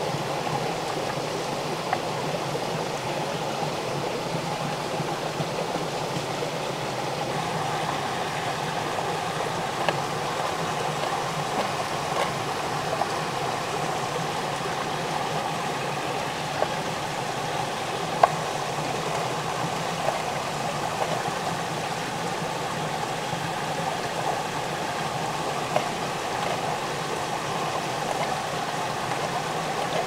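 Steady rushing water noise, with a few short sharp pops scattered through it.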